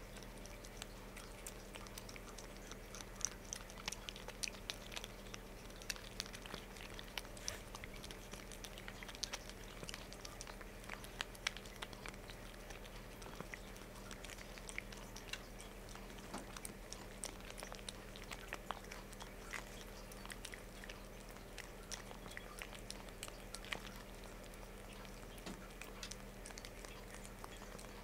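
A cat licking and mouthing a paste treat from a stick pouch: a steady run of small, irregular wet tongue clicks and smacks, several a second.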